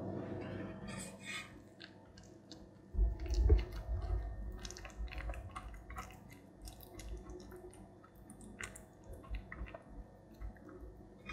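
A metal spoon pressing a sticky mix of rolled oats, strawberry, banana and honey into a silicone muffin cup: soft squishing with a run of light clicks and scrapes. There is a low thump about three seconds in, then scattered low bumps.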